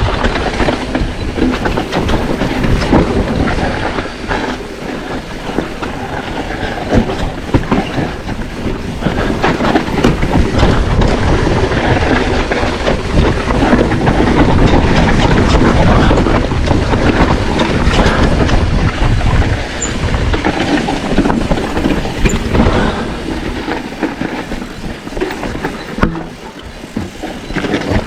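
Mountain bike riding a rough dirt trail, recorded on a GoPro: a loud, continuous clatter of tyres, chain and frame over the ground, with rumbling low noise throughout.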